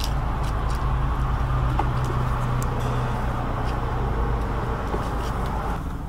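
Steady low hum and rumble of a car idling, heard through an open car door, with a few faint ticks.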